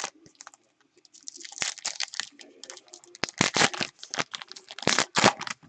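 Foil trading-card pack wrapper being torn open and crinkled in the hands, a quick run of irregular crackles and rustles.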